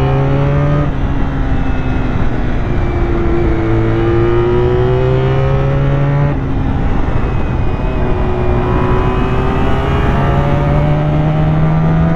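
Honda VFR400R NC30's 400 cc V4 engine pulling uphill on freshly cleaned carburettors. Its note climbs under throttle, drops back about one second in and again about six seconds in, then rises slowly and steadily.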